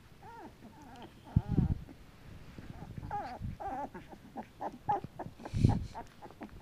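Two-week-old cattle dog puppies squeaking and whimpering in short, high, wavering bursts, several in quick succession, with a couple of low thumps.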